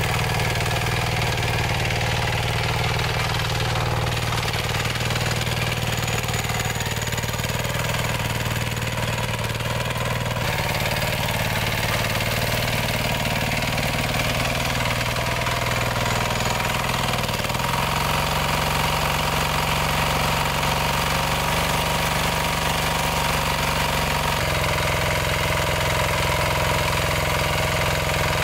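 An engine running steadily, its note shifting about two thirds of the way through and again near the end.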